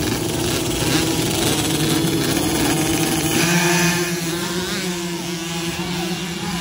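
Several children's mini dirt bikes running at the starting gate, then accelerating away together as the gate drops about three and a half seconds in.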